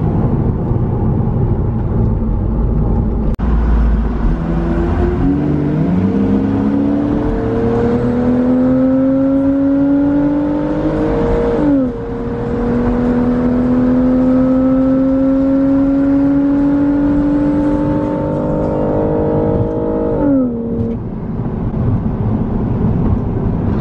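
Car engine accelerating hard over road noise. Its pitch climbs steadily, drops sharply at a gear change about halfway through, then climbs again until it falls away near the end.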